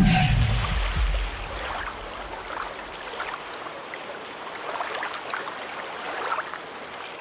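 A deep rumble that fades away over about the first second, then a steady soft sea-water ambience with scattered small splashes or clicks, which cuts off abruptly at the end.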